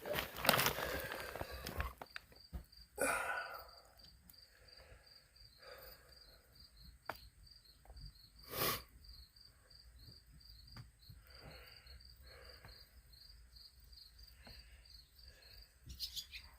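Crickets chirping steadily in high, even pulses, about three to four a second, with a few faint scattered knocks and rustles; one sharper knock about nine seconds in.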